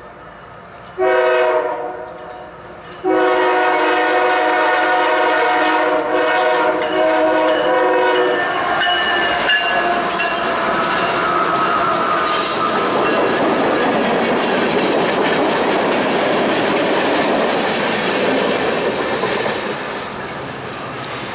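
CSX freight locomotive's air horn sounding several notes at once: a short blast about a second in, then a long blast lasting about five seconds. The train then passes close, its wheels clattering over the rail joints.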